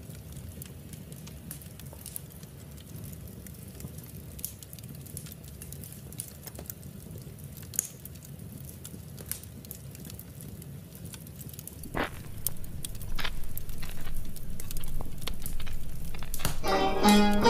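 Wood fire crackling in a fireplace: a low steady rumble with scattered sharp pops, which grow louder and more frequent from about twelve seconds in. Near the end, plucked-string music begins.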